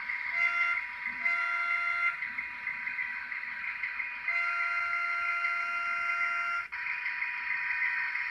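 Sound decoder in a Roco model of the FS D214 diesel shunter, playing the diesel engine running through the model's small speaker. Over it the horn sounds: two short toots in the first two seconds, then one longer blast from about four seconds in that cuts off suddenly.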